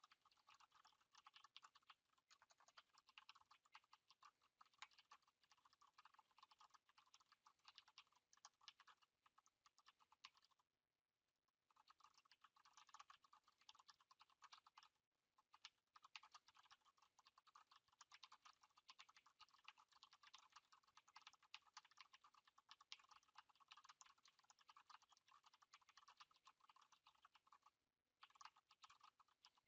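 Fast typing on a Perixx PX5200-BR mechanical keyboard with Cherry MX Brown switches, a rapid, faint stream of key clicks at about 71 words per minute. It breaks off briefly about eleven seconds in, again about fifteen seconds in, and once more near the end.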